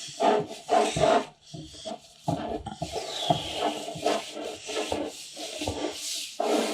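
Hands rubbing dry seasoning into a raw rack of pork ribs, with irregular rubbing and handling noises against the meat and board.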